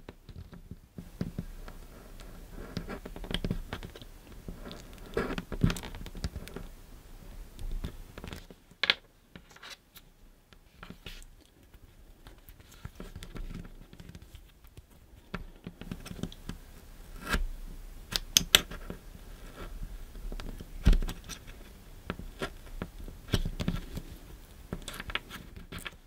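Scalpel blade scraping and cutting into the plastic housing of a Wago 222 lever wire connector: a run of irregular scratchy strokes with a few sharper clicks.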